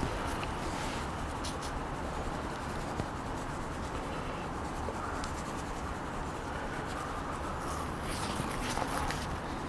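Gloved hands rubbing mustard binder over a slab of pork belly on a wooden cutting board: faint rubbing and smearing, with a few soft clicks, over steady background noise.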